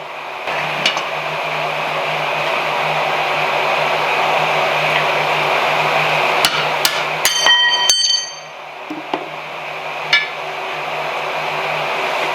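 Hammer blows on a steel anvil: a faint strike about a second in, a quick run of five or so ringing blows about two-thirds through, and one more later. Under them a steady rushing noise with a low hum, which drops away right after the run of blows and builds back.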